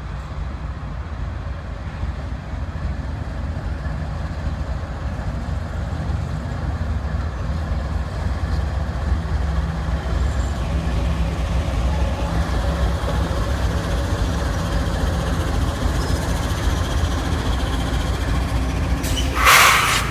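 Diesel freight train locomotive rumbling steadily and slowly growing louder. A short, loud hiss comes near the end.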